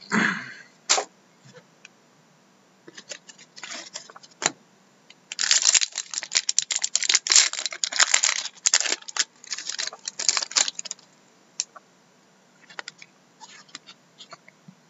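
Foil trading-card pack wrapper crinkling and tearing as it is ripped open by hand: a dense stretch of crackling from about five seconds in to about eleven seconds. Scattered sharp clicks of cards being handled come before and after.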